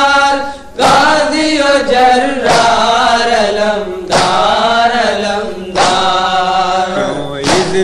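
Voices chanting a nauha, an Urdu Shia lament, in sung phrases that each begin sharply about every one and a half to two seconds.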